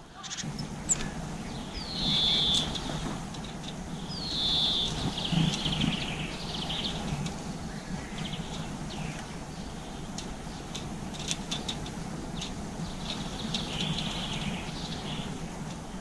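Small songbirds calling and singing in short phrases, several bursts scattered through, with a few sharp clicks and a steady low hum underneath.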